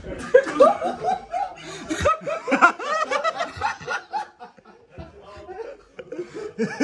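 Men laughing hard, in quick repeated ha-ha's that die down about four and a half seconds in and pick up again near the end.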